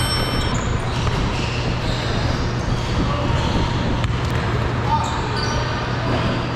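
Basketball dribbled on an indoor court, with indistinct players' voices echoing in the large hall, a few short high squeaks and a steady low hum underneath.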